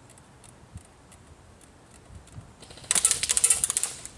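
Mounted electric airsoft gun firing one rapid full-auto burst about three seconds in, a quick run of sharp clicks lasting about a second.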